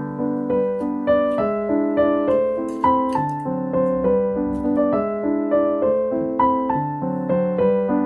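Background piano music: a steady stream of struck notes over held chords.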